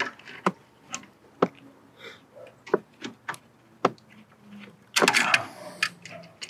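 Channel-lock pliers clicking and tapping against a metal hose clamp as it is worked along a rubber coolant hose, a scattering of single sharp clicks, with a louder scrape about five seconds in.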